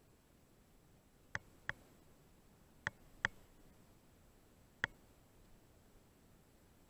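Five short, sharp clicks over a faint, quiet background: a pair about a third of a second apart, another pair a little over a second later, and a single click near the end.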